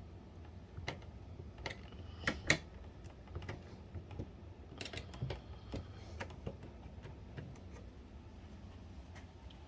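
Scattered light clicks and taps of hands handling and fitting small plastic parts and cables inside a disassembled PlayStation 3, the loudest a pair of clicks about two and a half seconds in.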